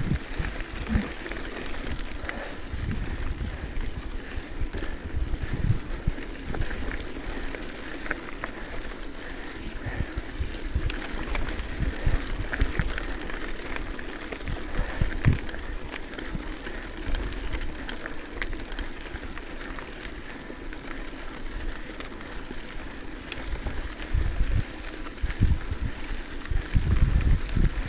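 Mountain bike riding along a dirt and rock trail: tyres rolling over the ground with scattered small clicks and rattles, and wind buffeting the camera microphone in uneven low gusts, strongest near the end.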